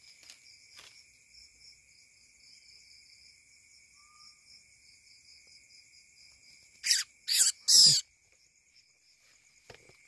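Steady night chorus of crickets and other insects: several high, continuous, pulsing tones layered together. About seven seconds in come three short, loud, harsh bursts in quick succession, much louder than the chorus.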